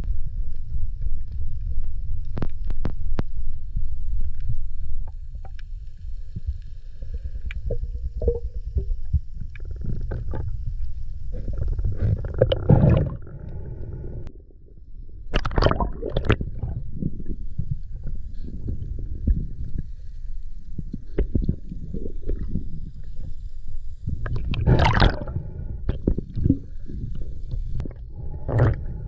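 Underwater sound picked up by a diver's camera: a steady low rumble of moving water, broken by three brief, louder rushing bursts.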